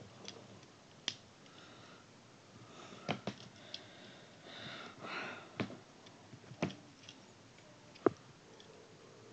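Small plastic toy parts being handled and fitted together, giving scattered clicks and taps, the sharpest about eight seconds in. A breathy sniff near the middle.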